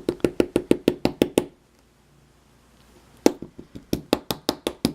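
Rapid sharp tapping on a disassembled pin-tumbler lock, about seven taps a second in two runs with a pause between, to knock a stuck pin or spring out of its chamber.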